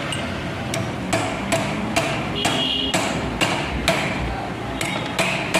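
A hammer striking metal in a steady run of sharp, ringing blows, about two to three a second, working loose the lock behind the magneto rotor of a Hero Splendor engine.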